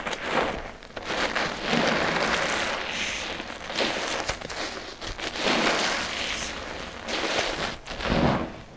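A sponge loaded with thick shampoo suds squeezed by hand several times over, with wet squelching and crackling foam.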